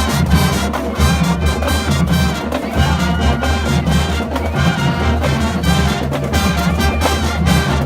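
Marching band playing full out: trumpets and trombones carry the tune over heavy low brass and steady drum hits.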